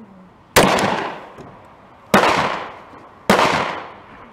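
Three shots from a Glock 30 .45 Auto pistol firing 200-grain Speer Gold Dot +P rounds, a second or so apart, each sharp crack trailing off in a long fading echo.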